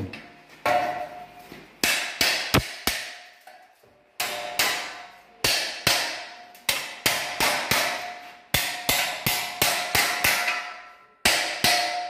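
Hammer striking a perforated steel 50 mm cable tray, bending its sides into a 90-degree corner: many sharp metallic blows with a ringing note, coming in quick runs. There is a pause of about a second between runs near the middle and again near the end.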